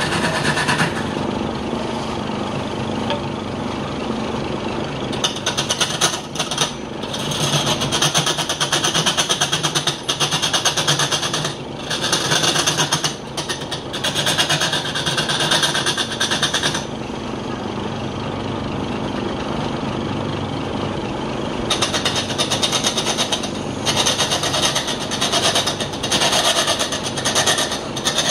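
Wood lathe running with a large wooden blank spinning, and a hand-held turning tool cutting into the spinning wood with a rough, hissing scrape. The cutting comes in two long stretches, from about five seconds in to about seventeen and again from about twenty-two seconds, with the lathe's steady hum between them.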